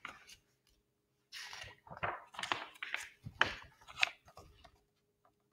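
Paper rustling and crinkling as the pages of a picture book are turned and the book is moved about in the hands, with a few light knocks, the sharpest about four seconds in. It stops near the end.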